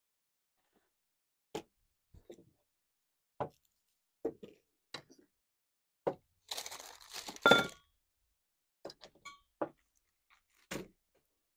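Kitchen items being set down one by one on a wooden table: a plastic chopping board, spice jars and other small things, making a dozen or so separate knocks and clinks. Near the middle comes a longer burst of crinkling packaging, the loudest sound.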